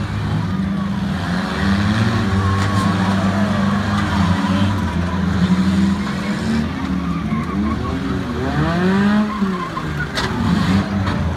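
Several demolition-derby cars' engines running and revving as the cars push and ram each other. The revs rise and fall a few times near the end, with a sharp crash of impact about ten seconds in.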